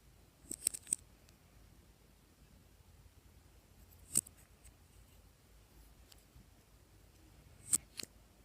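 Glossy slime being handled, giving sharp pops and clicks: a quick cluster of three or four in the first second, a single pop about four seconds in, and two more near the end.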